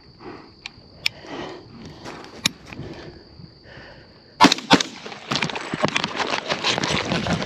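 A single rifle shot fired from horseback about four and a half seconds in: a sharp crack with a second crack right after it. The startled horse jumps, and loud clatter of hooves, tack and wind follows to the end; before the shot, quiet hoof and tack clicks as the horse walks.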